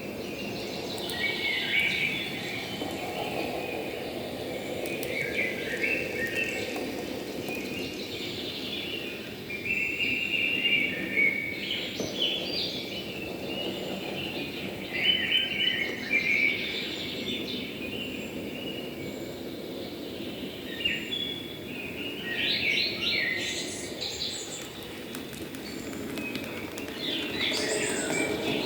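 Several birds chirping and singing in short, repeated phrases, over a steady low noisy hiss.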